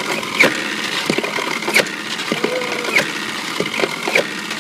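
Frisbee-shooting robot running, its shooter motor going steadily with a sharp clack about every second and a quarter as each frisbee is fired, four shots in all.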